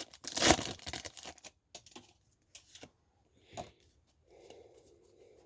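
Foil booster pack wrapper being torn open, a loud crinkling rip about half a second in, followed by softer scattered rustles and clicks of the wrapper and cards being handled.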